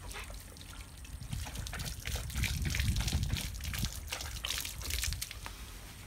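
Water trickling from a garden hose onto patio tiles, with irregular splashing as a golden retriever laps at the stream.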